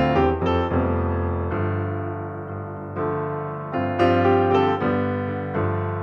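Background piano music: notes and chords struck every second or so, each ringing and fading away.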